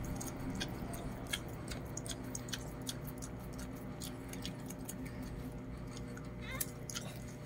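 Lhasa Apso mother dog licking her newborn puppies: scattered soft wet clicks and smacks at an irregular pace, over a low steady hum.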